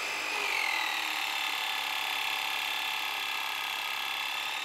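Electric hydraulic pump of a guided-bend tester running with a steady whine. About half a second in, its pitch drops and stays lower as the ram presses the welded test strip into a U-bend and the pump takes the load.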